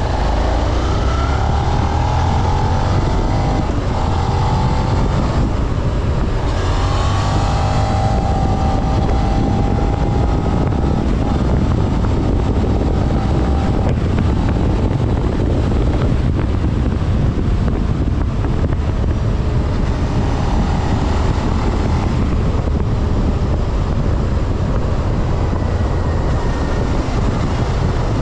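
Suzuki SV650's 645 cc V-twin with its stock exhaust, heard while riding: engine pitch rising and falling as the revs change near the start, around seven seconds in and again about twenty seconds in, under heavy wind noise on the microphone.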